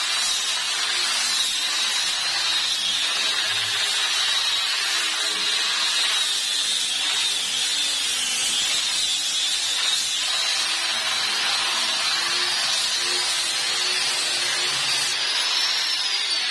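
Electric round-pad sander running against a wooden board, a steady high whine over a rough grinding hiss as it sands down dried homemade wood filler made of wood glue and sanding dust. Near the end the whine rises as the pad is lifted off the wood.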